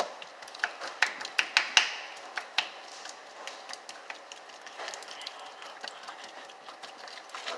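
Irregular sharp taps and clicks of small hard objects being handled and knocked together, quickest and loudest over the first two seconds, then lighter and sparser.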